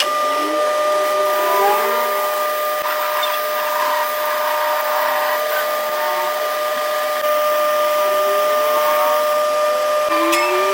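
Steady whine of a running motor, holding one pitch over a constant hiss.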